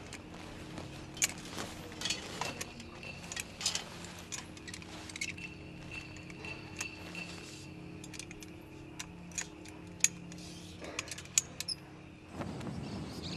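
Irregular light metallic clinks and jingling, as of small metal objects knocking together, over a low steady hum.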